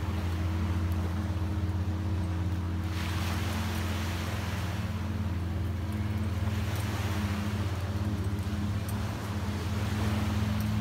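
An engine running steadily: a low, even hum with a few overtones that never changes pitch. A rushing hiss joins it about three seconds in.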